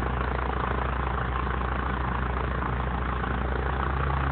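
North American T-6 Texan's 600-horsepower Pratt & Whitney R-1340 nine-cylinder radial engine running steadily at low power with the propeller turning, as the plane taxis slowly. It is a loud, even drone with a deep steady hum underneath.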